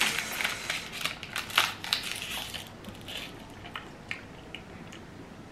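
Plastic snack wrapper crinkling and crackling as it is opened around a corn puff stick, densest in the first three seconds, then a few lighter crackles.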